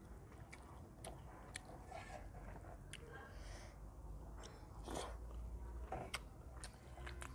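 Close mouth sounds of a person chewing a mouthful of rice and chicken curry eaten by hand, with small wet clicks scattered through.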